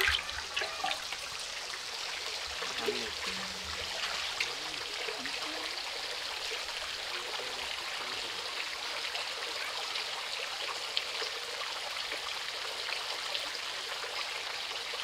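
Water running steadily, an even continuous rush like a stream or a pipe pouring, with a faint voice briefly underneath about three seconds in.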